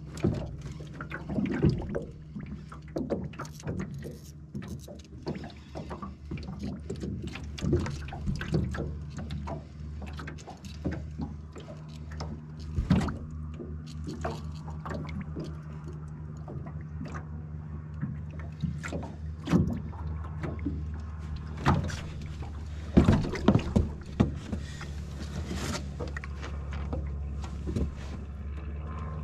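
Footsteps and gear knocking and clunking on an aluminum boat's deck and hull, over a steady low hum, while a fish is played on rod and reel. The sharpest knocks come in a cluster near the end as the landing net is brought out.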